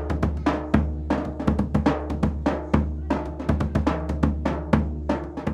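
Zabumba and other drums playing a fast, even rhythm of many sharp strikes a second over a steady deep boom.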